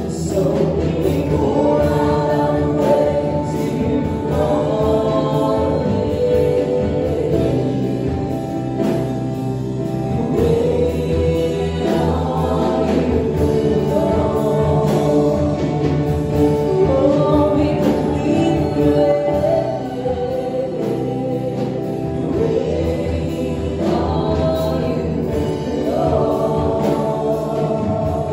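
Live worship band performing a contemporary worship song: several singers over electric guitar and keyboard.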